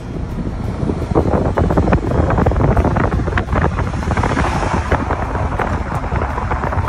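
Wind buffeting the phone's microphone over city street noise, with a steady low rumble and many short clatters throughout.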